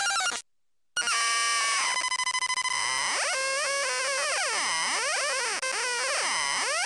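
A homemade wooden electronic noise box puts out loud, buzzy synth tones. The sound cuts out for about half a second near the start, then returns, and its pitch sweeps down and up several times as a knob on top is turned.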